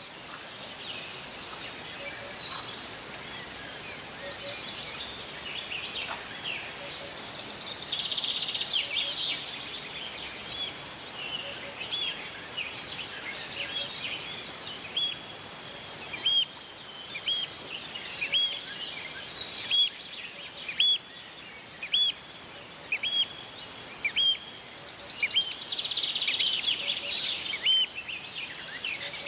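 Wild birds singing: one bird repeats a short clear note about once a second through the middle stretch, while dense bursts of higher twittering song come twice, near the start and near the end, over a steady outdoor hiss.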